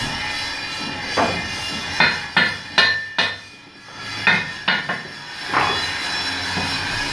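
Hammer striking a steel truck wheel rim mounted in a lathe as the rim is knocked into position: about nine sharp metallic clangs, irregularly spaced, each ringing briefly.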